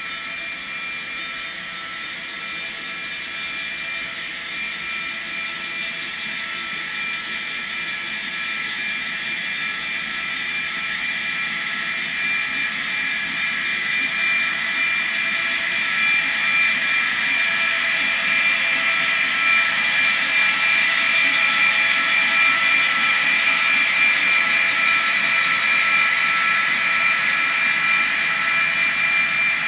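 A model train running: the locomotive's small electric motor whining and the coal hoppers rolling along the track, a steady whir with a few held tones. It grows louder through the first twenty seconds or so as the train comes closer, then stays level.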